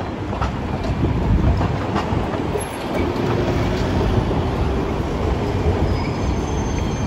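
Hiroshima Electric Railway 800-series streetcar rolling through a curved street-track junction, its wheels clicking over the rail joints and points and squealing thinly on the curve. Road traffic rumbles past at the same time.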